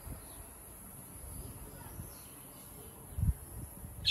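Quiet countryside ambience with faint insects and birds, a low thump about three seconds in, and a short high bird chirp right at the end.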